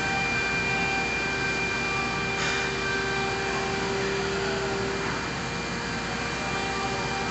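Steady machine hum with several constant whining tones running throughout, like a motor or fan. A faint brief rustle comes about two and a half seconds in.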